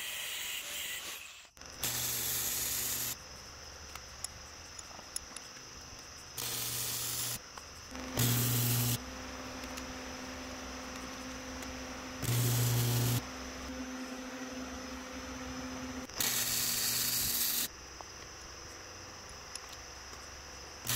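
Angle grinder cutting steel plate for about the first second and a half. Then five short bursts of hissing from a power tool, each about a second long, over a steady background hum.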